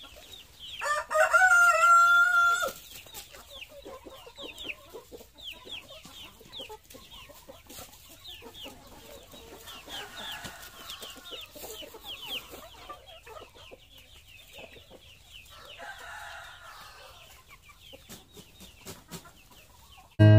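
A rooster crows once, loud and drawn out, about a second in; chickens cluck and a steady stream of quick high cheeps goes on throughout, with light rustling of straw and a feed sack.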